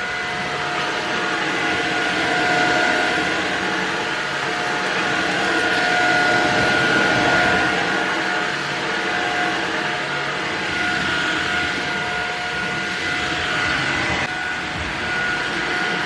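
Samsung Jet 60 Flex cordless stick vacuum running at a steady pitch, with a high motor whine over rushing air, as its floor brush is pushed across a hard floor.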